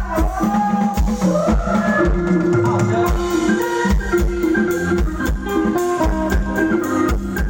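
Live Thai band playing a fast ram wong dance song: a steady drum-kit beat under held melody notes.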